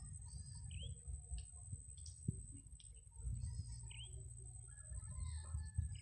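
Wild birds chirping in short calls, with one rising chirp repeated about three seconds apart, over a steady high-pitched insect drone and a low rumble.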